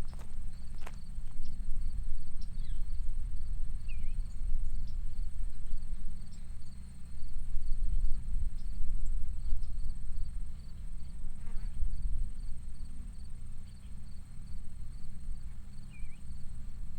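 Countryside ambience: an insect, likely a grasshopper or cricket, chirps steadily about twice a second over a thin continuous high whine. A low uneven rumble runs underneath, and a faint bird chirp comes twice.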